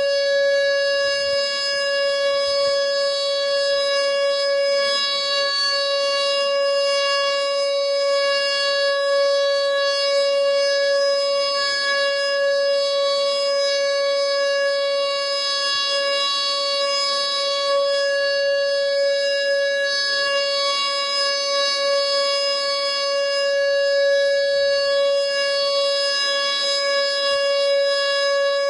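Whelen WPS 2910 electronic outdoor warning siren sounding its steady alert tone, one unwavering pitch held without a rise or fall.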